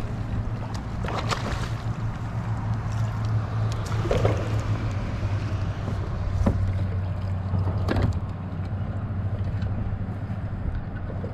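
A few sharp knocks of a landing net and fishing rod against a kayak's hull as a fish is netted, over a steady low hum.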